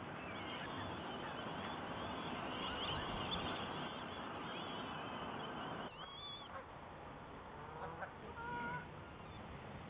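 Birds calling over a busy outdoor background. About six seconds in, the sound cuts to a quieter background with a few short, clear calls.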